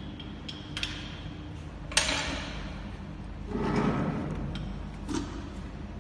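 Pipe drawing machine running with a steady low hum, with scattered metallic clicks, a sharp clank about two seconds in, and a louder swell of noise around four seconds in as the metal pipe is worked through the drawing dies.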